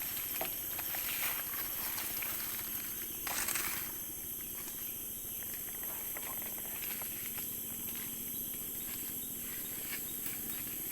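Forest ambience: a steady high-pitched insect chorus, with a brief louder rustle about three and a half seconds in.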